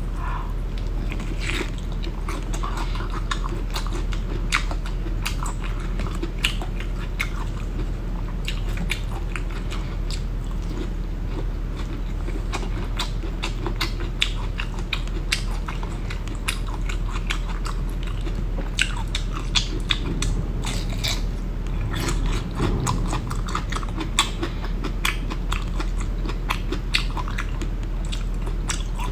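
Biting and chewing a fresh winter bamboo shoot: many short, crisp crunches that keep on through the whole stretch, with the shoot's layers being pulled apart by hand, over a low steady hum.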